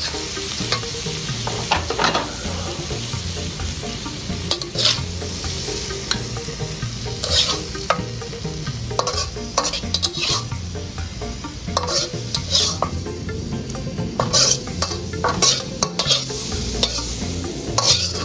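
Metal spatula scraping and clanking against an aluminium wok as a cooked stir-fry of bitter melon and anchovies is scooped out onto a plate, with sharp scrapes coming irregularly every second or two.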